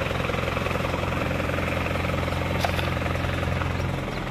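Lorry's diesel engine running with a steady low drone, easing off slightly near the end.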